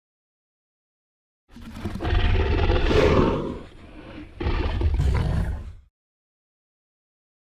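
Tyrannosaurus rex roar sound effect: a deep roar of about two seconds, then after a brief dip a second, shorter roar that cuts off, with silence before and after.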